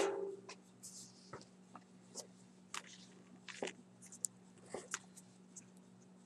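Trading cards and their packaging being handled: scattered light clicks, taps and rustles, over a faint steady electrical hum.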